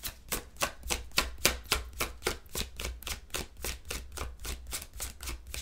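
A deck of tarot cards being shuffled by hand, the cards clicking against each other in a quick, even run of about five clicks a second.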